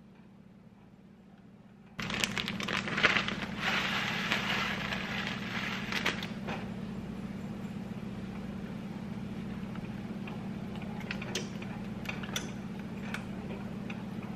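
Coconut flakes added to a saucepan of coconut-milk curry with a loud rustling, crackling rush that starts suddenly about two seconds in and lasts a few seconds. Then a silicone spatula stirs the pot, with scattered light taps against the pan, over a steady low hum.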